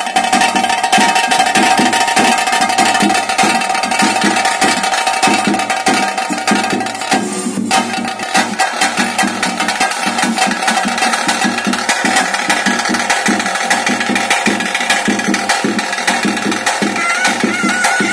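Traditional ritual music: fast, dense drumming with a held pipe-like note that breaks off about seven and a half seconds in, and higher held notes coming in near the end.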